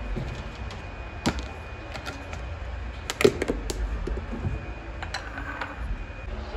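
Scattered sharp clicks and light knocks from objects being handled, the loudest cluster about three seconds in, over a low steady hum.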